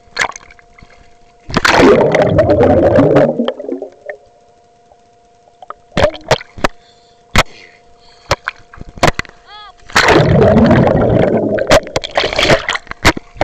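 Water churning against a submerged action camera's microphone: two loud rushing surges of about two seconds each, the first starting about a second and a half in and the second near the end, with scattered sharp knocks and clicks between them. A faint steady hum runs underneath.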